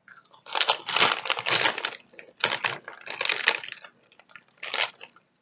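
Crunching potato chips being chewed and the crinkling plastic chip bag being handled, in several bursts of crackling.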